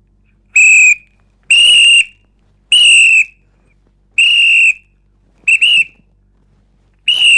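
Traffic policeman's whistle blown in a run of high-pitched blasts: four of about half a second each, then two pairs of quick short toots.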